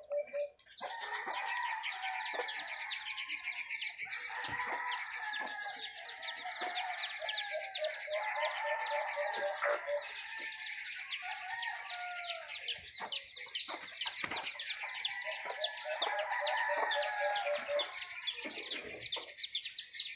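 Birds calling: dense, quick high chirping throughout, with a run of rapid, evenly repeated lower notes during roughly the first half.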